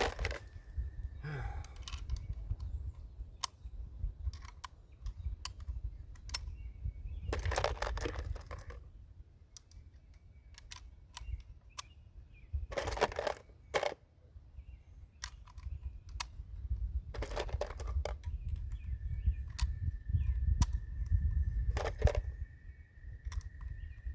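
Scattered metallic clicks and clacks of cartridges being pressed into an SKS rifle's magazine during a reload, with a few longer rattles of handling, over a steady low rumble.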